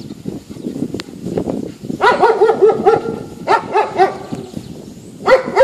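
Dog barking in quick runs of short barks, starting about two seconds in, with a pause before another run near the end.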